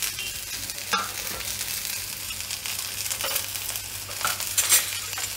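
Chopped green beans, carrots and capsicum sizzling in hot oil in a kadai as they are stir-fried: a steady hiss, with a few light knocks about a second in and twice near the end.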